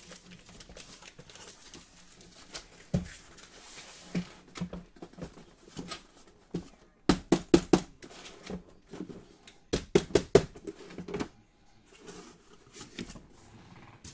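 A cardboard case being opened and the card boxes inside handled, with light scraping and rustling of cardboard. There is a single knock about three seconds in, then two clusters of quick sharp knocks, about halfway and again about three seconds later, as the boxes are moved and set down.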